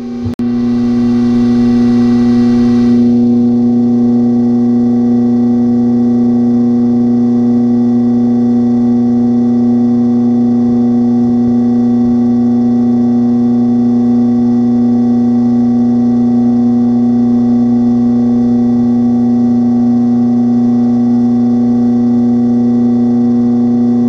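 Background music: a single loud droning note with its overtones, held unchanged throughout.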